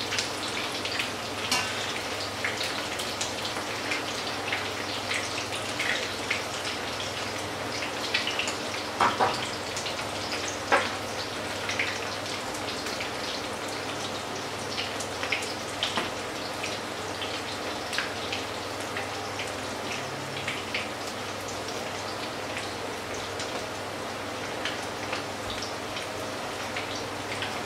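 Fritters shallow-frying in hot oil in a frying pan: a steady sizzle with constant crackling and spitting, and a few louder pops near the middle.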